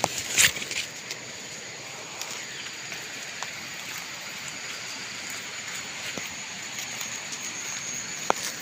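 Steady noisy hiss of outdoor background sound, with brief rustles and snaps of leaves and twigs being pushed through, loudest about half a second in.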